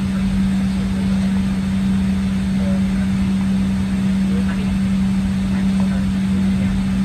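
Steady cabin hum of a Boeing 737-800 rolling slowly on the ground, a constant low drone with one strong unchanging tone over a rumble.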